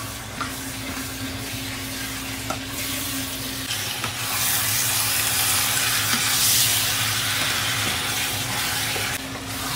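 Chicken thigh pieces and sliced onion sizzling in hot oil in a pot while being stirred with a spatula, sautéed until partly browned. The sizzle grows louder about four seconds in.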